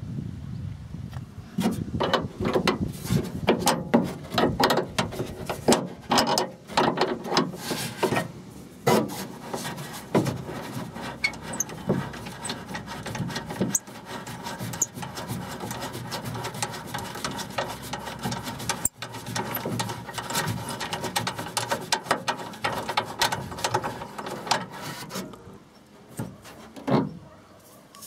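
Hand work on a car's high-mounted brake light mounting inside the trunk lid: dense runs of rapid clicks with metal and plastic scraping and rubbing as it is unfastened. It goes quieter a few seconds before the end, with a few single clicks.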